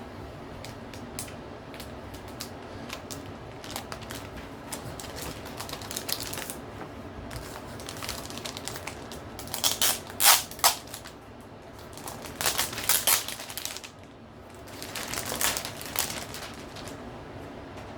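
A Logitech G915 TKL low-profile mechanical keyboard and its packaging being handled during unboxing: scattered light clicks and clacks, with three louder bursts of handling noise in the second half.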